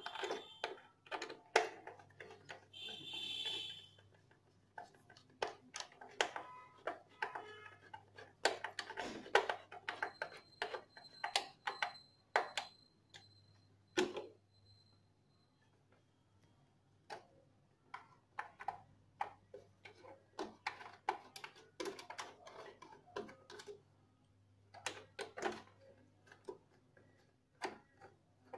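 Irregular clicking and ticking of a screwdriver turning screws back into the plastic headlamp cowl of a TVS Victor motorcycle, with light knocks of the plastic panel, and a short pause about halfway through.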